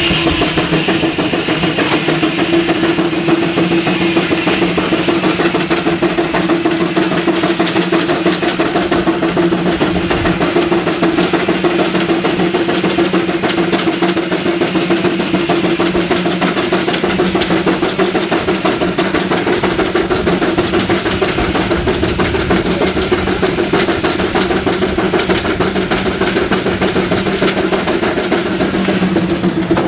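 Sawmill machinery running steadily: a fast, even rattle over a constant hum.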